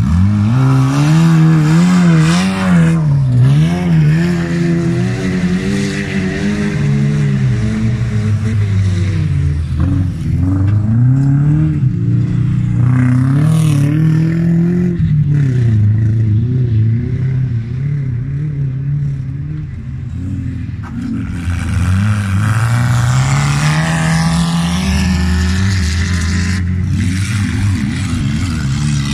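Old wreck-race cars' engines revving hard on a dirt track, the pitch climbing and dropping over and over as they accelerate and lift off. The swings come quickly in the first few seconds and become longer, slower swells after that.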